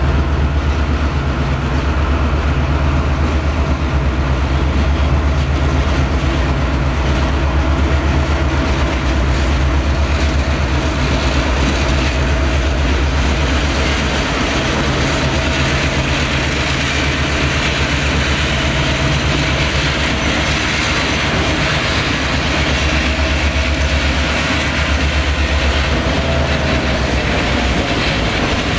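CN diesel yard locomotives and their slug units rolling slowly past, the locomotive engines giving a steady low drone over the rumble and clatter of wheels on the rails. About halfway through, the wheel and rail noise grows louder as the consist's trailing units and then freight cars pass.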